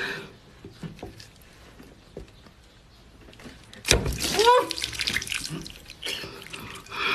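Close-miked eating sounds: faint wet mouth clicks, then a loud wet slurping noise from about four seconds in.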